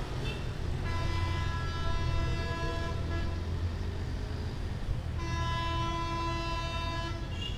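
Train horn sounding in long steady blasts: one ends just as the sound begins, a second lasts about two and a half seconds, and a third starts about five seconds in. A low rumble of road traffic runs beneath.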